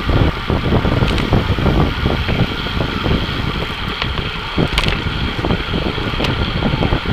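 Wind buffeting an action camera's microphone on a moving racing bicycle, over steady rumble from the road and tyres. There are a few sharp clicks along the way.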